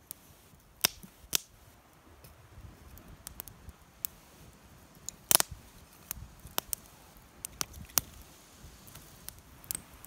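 Dry split kindling sticks clacking against one another as they are laid crosswise on a small campfire: a few separate sharp wooden knocks, the loudest a quick cluster about five seconds in.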